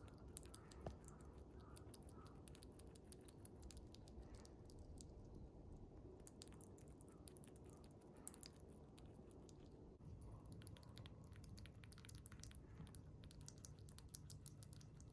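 Siberian chipmunk chewing and licking small-animal jelly food: a faint, quick run of fine wet smacking clicks that gets busier about ten seconds in.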